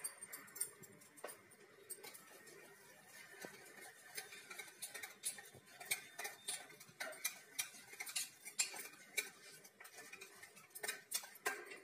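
Wire whisk clicking against the inside of a stainless steel bowl while beating gram-flour batter, in rapid, irregular strokes that come thicker and louder from about four seconds in.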